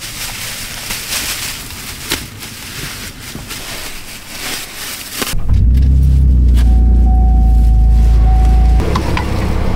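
Plastic sheeting crinkling and rustling as it is handled. About five seconds in, a car engine starts and runs with a loud, steady low rumble, with a steady high tone over it for about two seconds. Near the end the rumble settles to a lower, steady idle.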